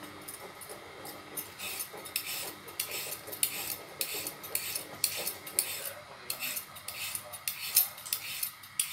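A metal vegetable peeler scraping the skin off a green radish in quick strokes, about two a second, each a short rasp. The strokes start about a second and a half in.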